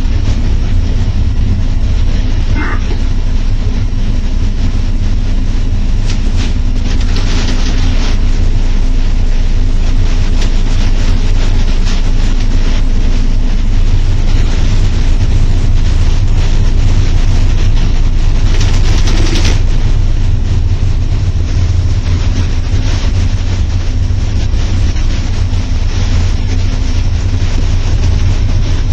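Cab of an EP07 electric locomotive under way: a steady, loud low rumble of the locomotive running along the track. Two brief hissing spells come about seven seconds in and again near twenty seconds.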